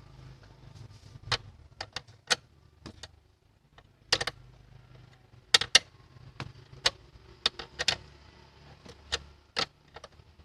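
Hand tools and parts clinking and clicking against each other and on metal: about twenty sharp, irregular taps, some in quick pairs or triplets, over a faint low hum.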